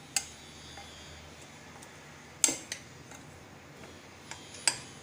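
A spoon clinking against a bowl a few times while boiled sweet corn is mixed with cornflour and spices: about five short, scattered clinks, the loudest about two and a half seconds in.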